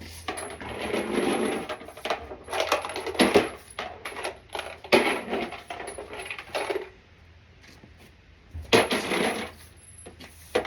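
Spent brass pistol cases clinking against one another as they are picked up and dropped together, in four bursts with a quiet gap of about two seconds before the last.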